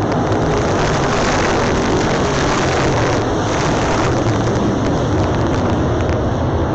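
A pack of dirt late model race cars running hard on the oval, their V8 engines blending into a loud, steady roar of many engines at once.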